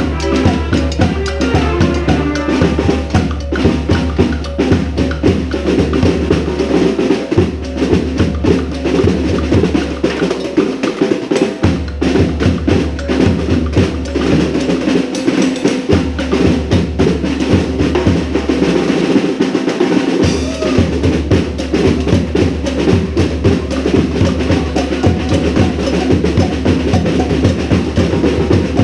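Brass band playing a salsa tune, with bass drum, snare and rim shots driving a dense, steady beat. Low sustained bass notes run underneath and drop out briefly a few times.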